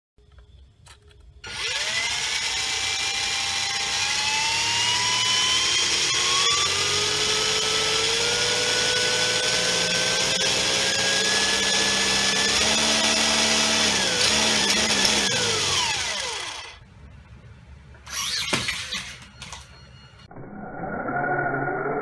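Electric motor and gears of a hobby RC car spinning its wheels off the ground: a high whine starts about a second and a half in, rises slowly in pitch as it speeds up, then winds down and stops about sixteen seconds in. A few short knocks follow, and near the end the car is heard running on a fabric-covered slope.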